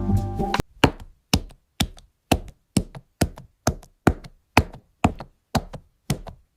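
Candy being crushed: sharp, separate knocks at a steady pace of about two a second. Music stops less than a second in, just before the knocks begin.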